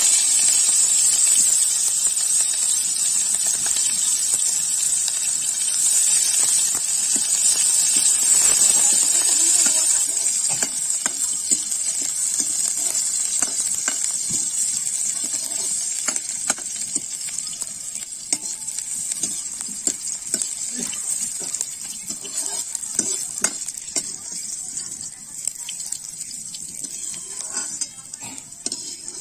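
Chopped onions frying in hot oil in a metal wok: a loud sizzle that slowly dies down. From about ten seconds in, a metal ladle clicks and scrapes against the wok as the onions are stirred.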